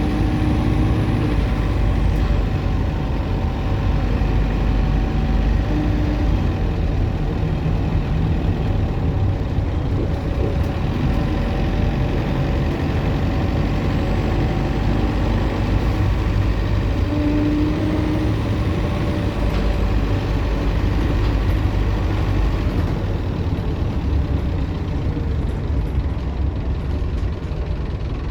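Optare Solo M950 bus's diesel engine running on the move, heard from on board: a deep engine rumble with a steady turbocharger whine over it. The higher sound thins out in the last few seconds.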